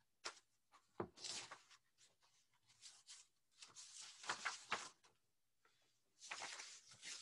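Soft rustling and a few light knocks of a picture book being handled, picked up and its pages turned, in several short bursts.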